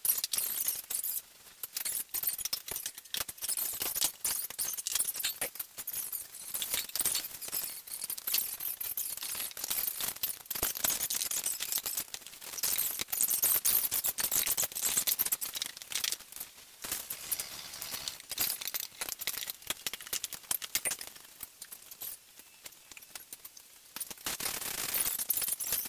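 Irregular metallic clinks, scrapes and squeaks of hand tools and rubber as a truck tire is broken down off its aluminum rim.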